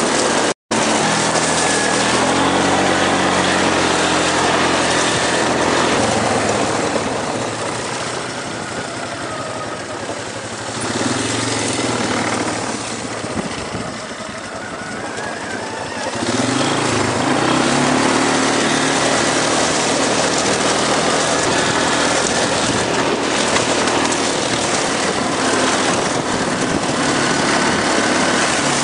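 ATV engine running while riding along a trail, its pitch shifting with the throttle; it eases off about a quarter of the way in and picks up again a little past halfway. The sound cuts out for an instant just after the start.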